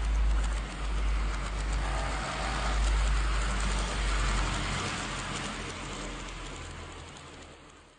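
H0-scale AVE 103 model high-speed train running on sectional track: a steady rumble of its motor and wheels on the rails with a light rattling crackle, which fades away over the last three seconds.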